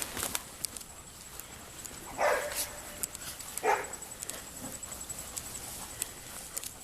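A dog barks twice, about a second and a half apart. Scattered faint clicks run underneath.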